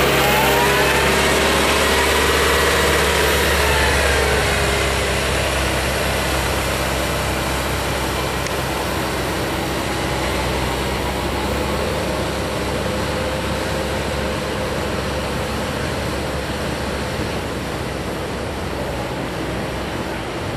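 Wheel loader's diesel engine running as the machine drives past close by, loudest over the first few seconds with a whine that bends in pitch, then fading as it drives off through floodwater. The steady rush of fast-flowing floodwater runs underneath throughout.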